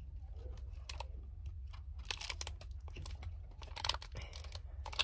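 Soft clicks and rustling close to the microphone over a steady low rumble, with louder rustles about two and four seconds in and a sharp click near the end.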